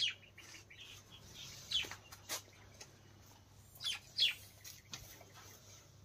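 Small cage birds chirping: a few short, high chirps that fall in pitch, spaced a second or two apart, with a couple close together about four seconds in.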